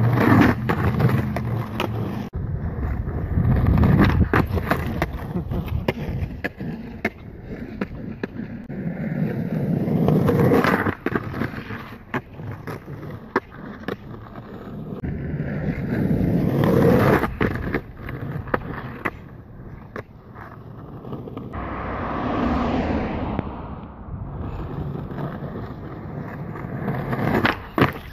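Skateboard wheels rolling on asphalt. The rumble swells and fades several times as the board passes close, with sharp clacks of the board hitting the ground and the curb.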